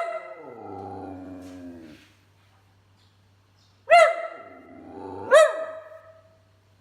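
Whippet barking three times: once at the start, then about four seconds and five and a half seconds in. The first bark trails into a long, falling, grumbling moan, the dog's 'talking', and the later barks end in whining tails.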